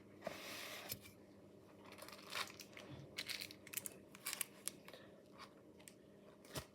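Packaging of a boxed die-cast model being handled and opened: a rustle in the first second, then a run of small crinkles and clicks.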